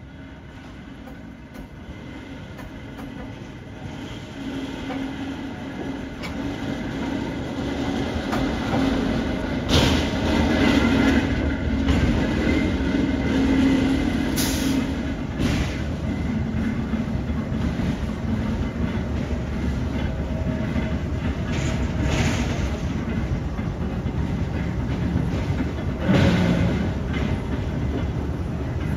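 Diesel-electric locomotives passing slowly at close range, with the engine running at a steady pitch. The engine grows louder over the first ten seconds and is punctuated by several sharp knocks.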